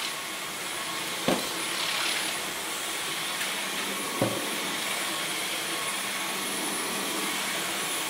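Dyson V11 Absolute Extra cordless stick vacuum running steadily: an even rushing noise with a faint high-pitched tone. Two brief knocks sound about a second in and about four seconds in.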